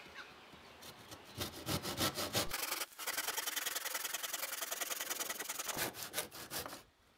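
Tenon saw cutting a 45-degree crosscut through a pallet board held on a bench hook. A few separate strokes at first, then a long run of fast, even back-and-forth strokes, slowing and stopping about a second before the end.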